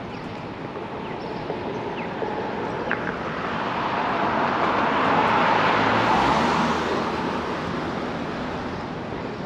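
Street traffic: a road vehicle approaches and passes, its road noise swelling to a peak about halfway through and then fading.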